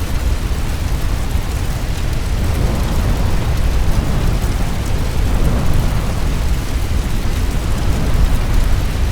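Fire storm sound effect: a steady, deep rumbling roar with a haze of fine crackle over it.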